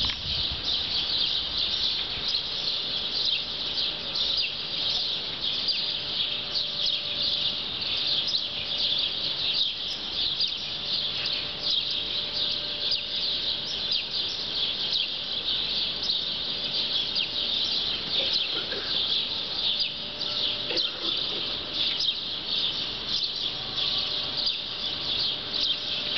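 Many small birds chirping at once, a dense, unbroken chatter of short high calls.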